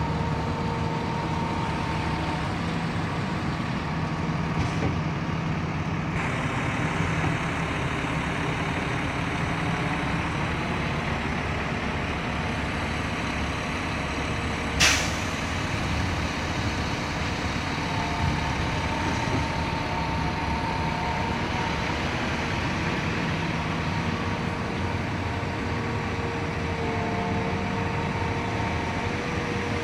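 Everdigm 36ZX truck-mounted concrete pump running steadily with a low engine drone and a faint whine that comes and goes. A short sharp hiss sounds about halfway through.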